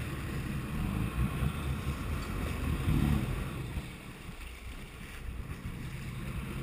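Water rushing and splashing along the hull of a moving boat, with wind buffeting the microphone.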